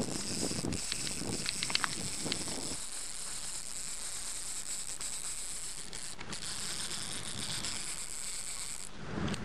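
Shakespeare line-counter fishing reel running with a fast, high clicking buzz. A few sharper clicks come in the first couple of seconds, then the buzz holds steady, breaks briefly around the middle and stops near the end.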